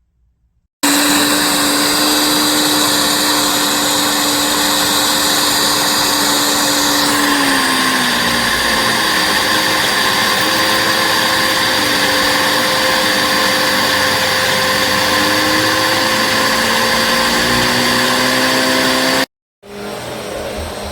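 Bissell CleanView Swivel Pet upright vacuum cleaner running loud and steady, starting suddenly about a second in. Its motor pitch drops slightly and wavers from about seven seconds in. It cuts off near the end and comes back quieter.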